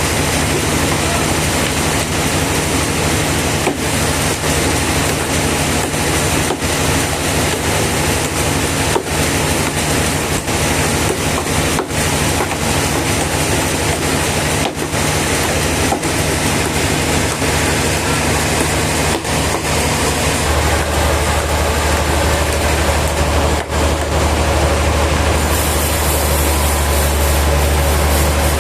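Sawmill machinery running steadily with a continuous mechanical din and a low engine-like hum. About twenty seconds in, the hum shifts deeper and louder.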